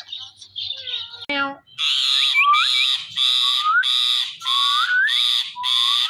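Ring-necked parakeet chirping softly, then from about two seconds in giving loud, harsh screeches over and over, about one a second, with short rising whistles mixed in.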